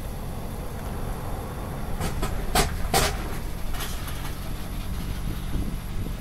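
Road vehicle running with a steady low rumble, with a few short, sharp hissing or rattling noises about two to three seconds in.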